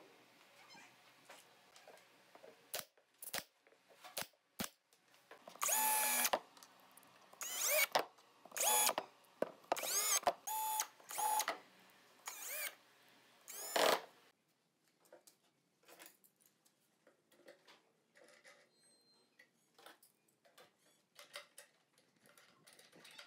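Cordless drill-driver running in about eight short bursts, its motor pitch rising and falling with each trigger pull, as it drives screws into a wooden drawer box. Faint clicks and knocks of wood and tools being handled come before and after.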